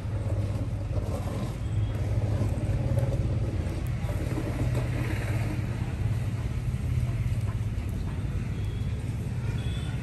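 A steady low rumble over a general background hiss, even throughout with no sharp knocks.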